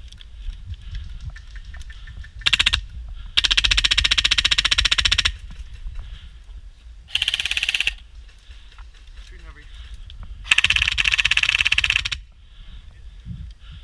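Airsoft gun firing on full auto in four bursts: a short one, a long one of about two seconds, another short one, and a long one near the end.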